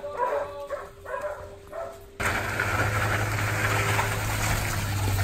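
Dogs barking in short repeated calls, then a little over two seconds in a sudden switch to the steady running of a Ram ProMaster 3500 van's engine with a low hum.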